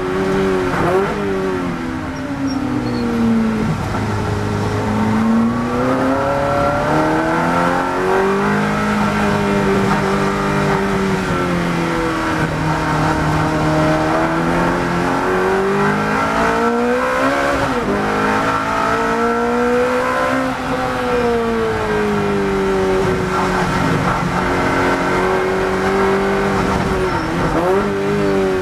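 Ferrari 430 GT3 V8 engine heard from inside the cockpit at racing speed, its pitch rising and falling as the car slows for corners and accelerates out of them. Sharp breaks in pitch at gear changes come a few times, about a second in, midway and near the end.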